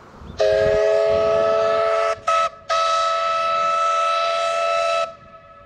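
Steam locomotive whistle on W934, a WAGR W class engine, sounding a long blast, a short toot, then another long blast, each holding several notes at once. A faint low rumble of the approaching train sits under the first blast.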